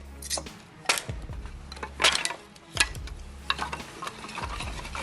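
Homemade manual firewood splitter being worked: a series of irregular sharp knocks and cracks, roughly one a second, as the wood is split.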